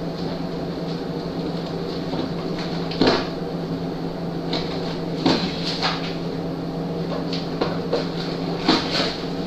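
Scattered knocks and rattles of frozen-food boxes and packaging being handled and shifted around in a freezer, over a steady low hum.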